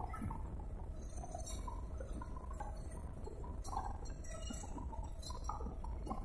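Steady low rumble of an auto-rickshaw's engine and tyres on the move, heard from the passenger seat, with scattered light clinks and rattles.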